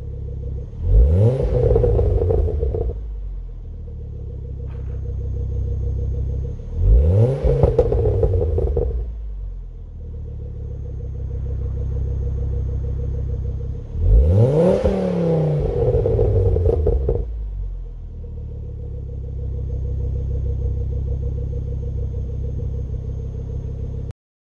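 Ford Focus Mk2 ST's turbocharged 2.5-litre five-cylinder engine idling through a Mongoose cat-back exhaust, heard at the tailpipes, and revved three times. The revs come about a second in, around seven seconds and around fourteen seconds. Each one rises quickly and then falls back to idle, and the third is held longest. The sound cuts off suddenly just before the end.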